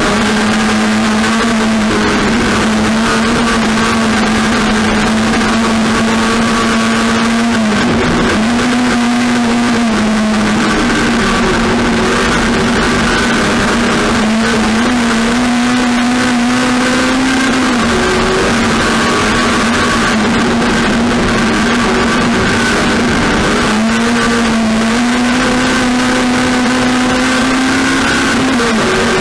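Race car engine running hard and steadily, its pitch dipping briefly and climbing back again several times, over heavy noise.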